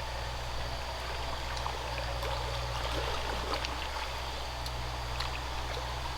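A steady rushing noise like flowing water, over a steady low rumble, with faint scattered ticks.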